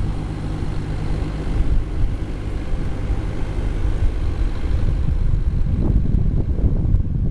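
Vintage tractor engine running steadily and fading out of earshot, with wind buffeting the microphone taking over.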